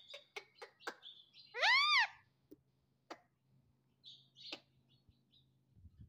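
Indian ringneck parakeet giving a quick run of about four short clicks, then one loud whistle that rises and falls in pitch, followed by a few faint chirps.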